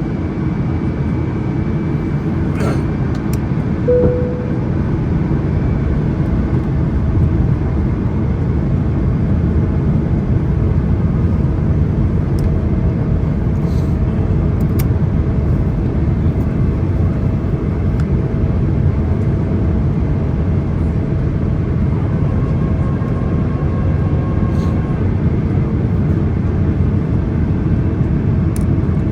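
Steady cabin noise of a Boeing 777-300ER airliner descending toward landing: a deep, constant rush of airflow and engine noise. A brief tone sounds about four seconds in, and there are a few faint clicks.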